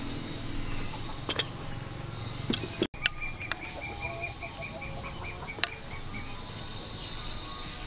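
A metal spoon clicks a few times against a ceramic bowl. About three seconds in, an animal gives a rapid run of high, evenly spaced chirps lasting about two seconds.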